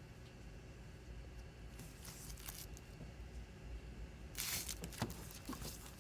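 Plastic packaging being handled and torn: soft crinkling about two seconds in, then a louder rip about four and a half seconds in, a sharp click and more crackling near the end.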